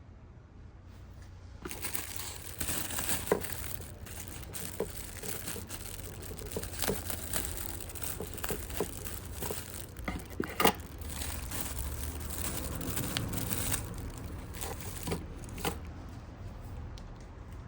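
Crinkling and rustling of plastic packaging being handled and torn open, with scattered sharp clicks, for most of the time before it thins out near the end.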